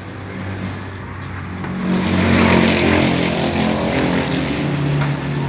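Engine of a passing motor vehicle, a steady hum that grows louder about two seconds in and eases off a little near the end.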